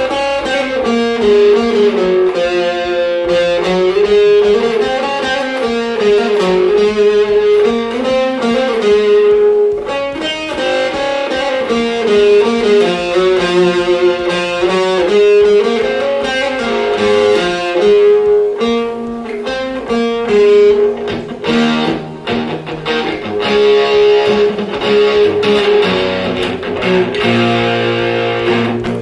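Electric guitar played through an Alfonso Rock 10 practice amp as a sound check, picking a melodic single-note line in repeating phrases, with lower notes coming in near the end.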